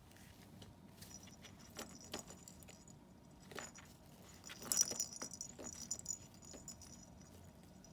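Kitten pawing at toys in a hunting box: scattered light knocks and rattles with bright jingling, loudest about five seconds in.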